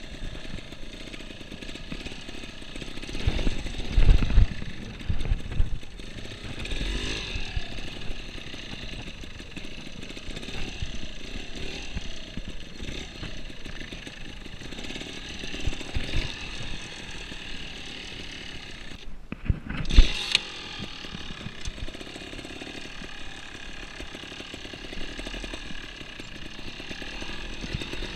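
Trials motorcycle engine running at low speed under repeated throttle blips, with harder bursts of revving about four and seven seconds in. A sharp knock stands out about twenty seconds in.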